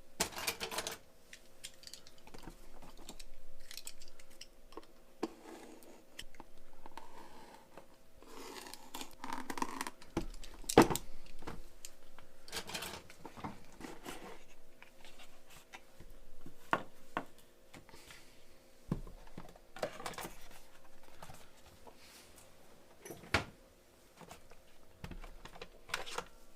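Scattered clicks, taps and light rustling from hands handling small tools and parts on a workbench, with a sharp click about eleven seconds in, over a faint steady electrical hum.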